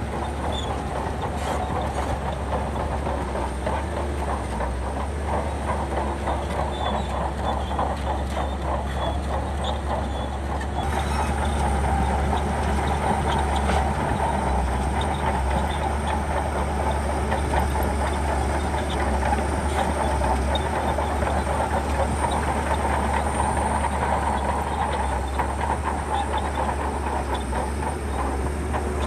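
Shantui crawler bulldozer working: its diesel engine running steadily under the continuous rattle and clank of its steel tracks, growing a little louder about eleven seconds in.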